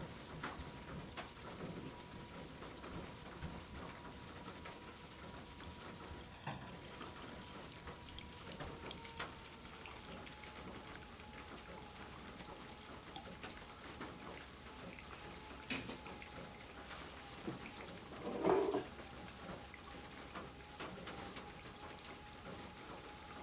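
Brewed coffee dripping from a pour-over filter into the carafe: faint, scattered drips over a thin steady tone, with one brief louder knock about eighteen seconds in.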